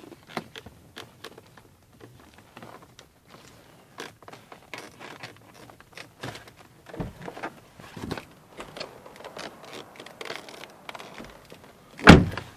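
Decorative trim on a Peugeot 308's door handle squeaking and creaking in many short irregular bursts as the handle is worked, with one loud thump near the end.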